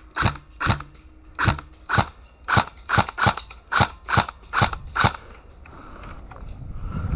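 Airsoft gun firing single shots in quick succession, about eleven sharp cracks at roughly two a second, stopping about five seconds in.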